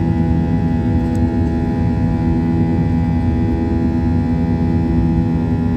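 Boeing 737-800's CFM56 turbofan engines heard from inside the cabin during the climb after takeoff: steady engine noise, several steady tones over a low rumble.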